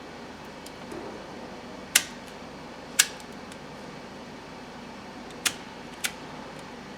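Wire strippers clicking sharply four times, about a second apart and then twice close together, as the door-harness wire is stripped. Under them runs a steady fan hum.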